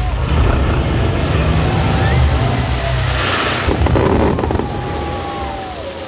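Aerial fireworks display at its finale: a dense, continuous rumble of bursting shells and crackle that eases off after about four and a half seconds. A crowd's voices rise in cheers and shouts toward the end.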